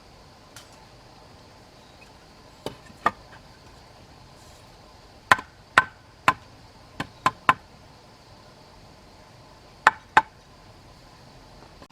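About ten sharp blows of a hand tool striking wood, in irregular groups of two and three with pauses between.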